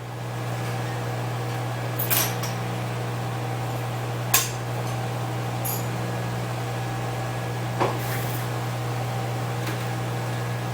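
Steady low electrical hum, with a few sparse light clicks and taps from handling the phone as a tool touches its Wi-Fi antenna.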